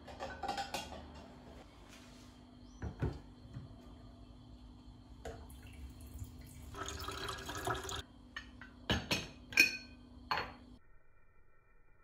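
Glass teapot being handled in a kitchen: glass knocks and clinks, tap water running into it for about a second, then several sharp glass clinks as it is set down. A low steady hum runs underneath and stops shortly before the end.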